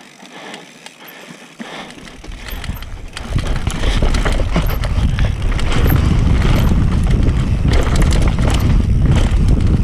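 Transition Patrol mountain bike riding fast down a dry dirt trail, heard close from the rider's GoPro: tyres rolling and skidding over dirt and rocks, with the chain and frame rattling. It is fairly quiet at first and gets much louder about three seconds in as the speed builds.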